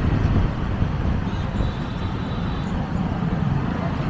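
City street traffic: a steady low rumble of car, scooter and motorcycle engines and tyres, heard from within the moving traffic.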